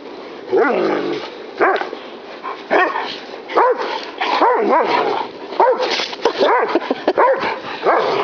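Dog barking and yipping excitedly: short, high-pitched barks that come faster and closer together from about three and a half seconds in.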